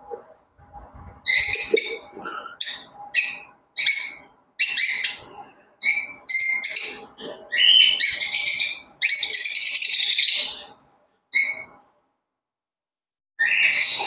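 Lovebirds calling: a run of short, high-pitched shrieks with a longer one about nine seconds in. Soft knocks about a second in, from a wooden nest box being handled.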